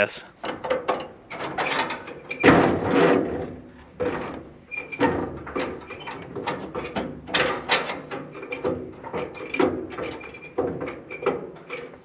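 Allis-Chalmers tractor failing to start on a weak, cold-soaked battery: irregular mechanical clicks and rattles from the starting attempt, loudest about two and a half seconds in, and the engine never catches.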